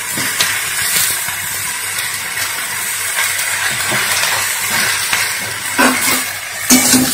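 Cauliflower and potato pieces frying in hot mustard oil in a karahi, a steady sizzling hiss. A couple of light knocks come near the end.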